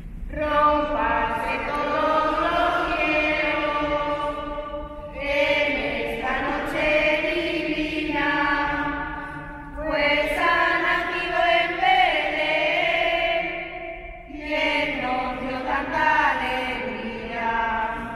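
A group of women singing a shepherds' Christmas carol together in a church, in four long phrases with short breaks between them.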